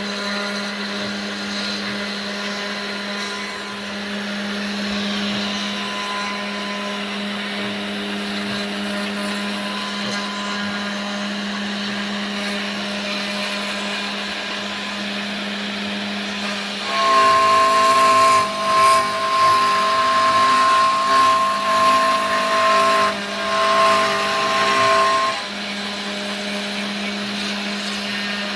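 Genmitsu 3020 PRO MAX CNC router's spindle running with a steady hum. A little past the middle it grows louder and uneven for about eight seconds, with a high whine, as the bit works the material, then settles back to the steady hum.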